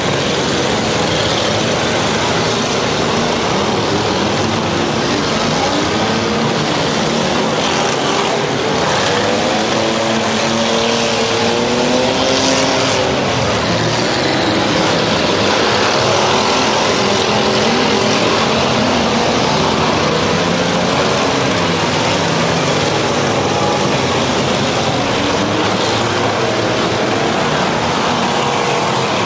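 Several demolition derby cars' engines running and revving hard, their pitch rising and falling as the cars push and ram each other in the dirt arena.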